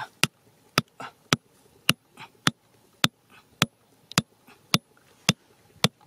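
Sharp, dry clicks at an even pace, about two a second, with an occasional extra click between beats.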